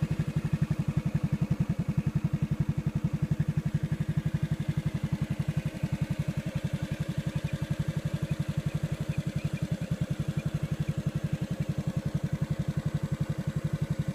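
Motorcycle engine running at a steady low speed, a fast even putt-putt of firing pulses.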